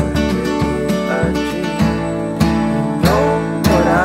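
Background music: an instrumental passage of a song with acoustic guitar and a steady beat about every 0.6 s.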